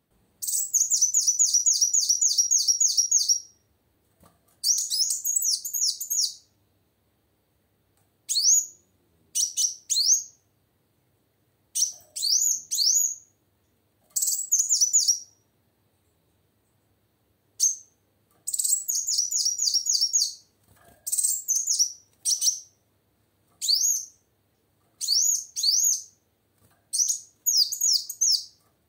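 Female kolibri wulung singing in quick bouts of high, rising chirps, a second or two of rapid notes at a time with short pauses between.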